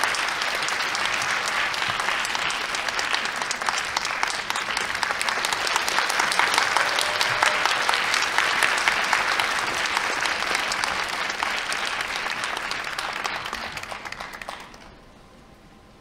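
Theatre audience applauding, dense steady clapping that dies away near the end into quiet hall ambience.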